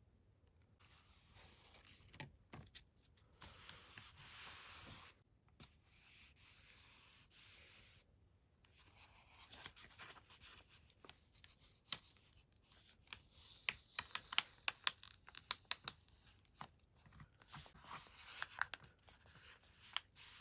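Paper being torn with a long rasping rip, then handled, with a run of sharp crackles and light taps in the second half.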